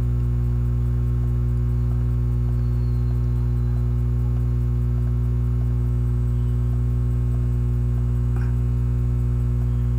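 Steady low electrical mains hum with its overtones, unchanging throughout, with one faint click about eight seconds in.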